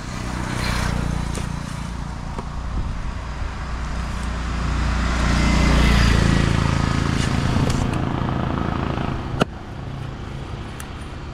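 A motor vehicle's engine running and passing close by, growing louder to a peak about six seconds in and then easing off. A single sharp knock comes near the end.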